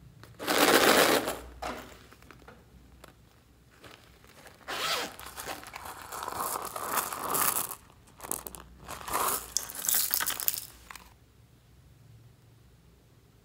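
Zipper on a vinyl pencil case being pulled open, in a short loud run and then longer stretches, with scraping and rustling as the case is handled.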